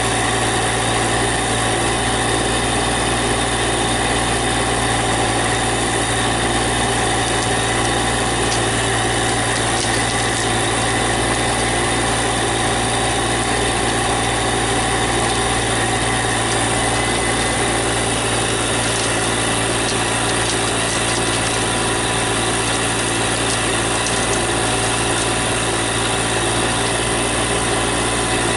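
Compact tractor backhoe's small diesel engine running at a steady speed.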